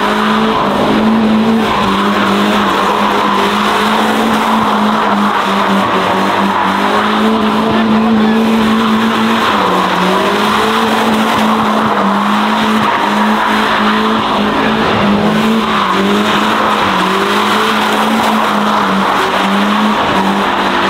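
Car engine held at high revs while its tyres spin and squeal, as in a burnout or drift; loud and continuous, the engine note stepping up and down slightly every few seconds.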